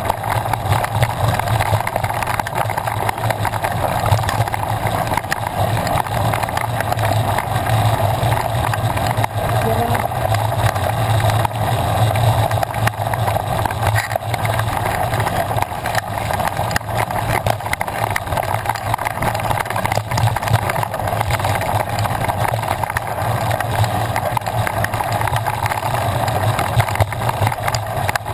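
Steady rumbling noise of a mountain bike riding fast on a dry dirt track: tyres on loose dirt and wind over a rider-mounted action camera, unbroken by any sudden knocks.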